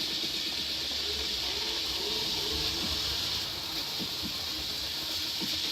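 Chopped garlic and coriander frying in hot oil in a pan, a steady sizzle.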